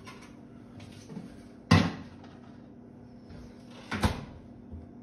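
Kitchen cabinet doors knocking shut as someone works in the cupboards: two sharp clacks, the louder about a second and a half in and another near the end, with a softer knock before them.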